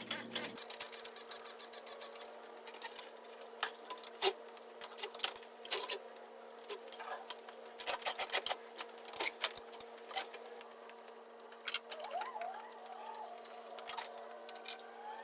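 Scattered light clicks and metallic clinks of tools and equipment being handled, irregular and sharp, over a steady low hum, with a few faint squeaks near the end.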